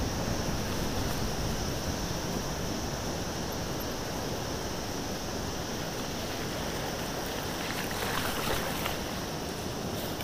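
Wind noise on the microphone over mountain bike tyres rolling down a rough gravel road, with a brief louder patch of crunching about eight seconds in.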